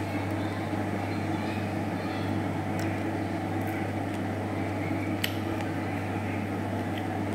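Steady low hum with a few faint, brief clicks.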